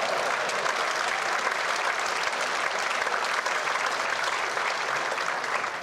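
Audience applauding, a steady round of clapping that eases off near the end.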